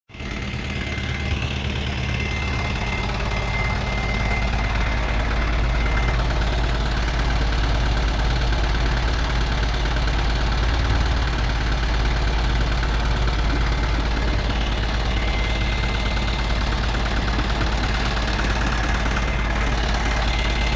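Excavator engine running steadily with a deep, even drone, and a faint high whine that comes and goes.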